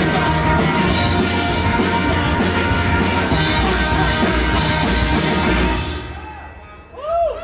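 Live rock band with drum kit playing loud, then the last chord dies away about six seconds in. Audience whoops and cheers start near the end.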